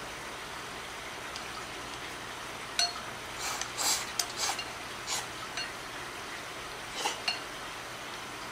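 Chopsticks clicking and scraping against a ceramic bowl as the last cold ramen noodles are picked out: a handful of scattered taps, with a short slurp about halfway through.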